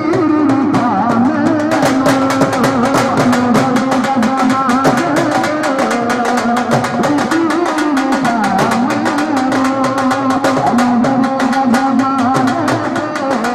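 Instrumental Punjabi folk music: fast, dense dhol drumming under a held, wavering melody line. The drumming gets fuller about two seconds in.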